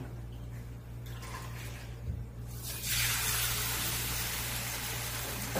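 Banh chao batter ladled into a hot frying pan sizzles, starting suddenly about two and a half seconds in and holding as a steady hiss.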